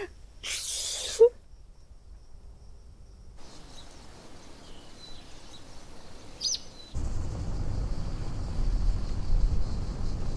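A short hiss and a sharp click in the first second and a half, then quiet outdoor ambience with a few bird chirps. About seven seconds in this gives way to the steady low rumble of road noise inside a moving car's cabin.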